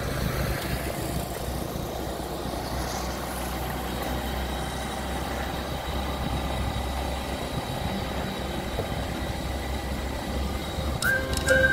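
Steady engine and road noise of a car driving along a paved road: a low rumble under an even wash of tyre noise. Music with a whistle-like melody comes in near the end.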